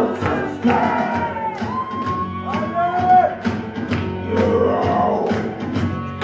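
Dance music with a steady beat, about two beats a second, and singing over it.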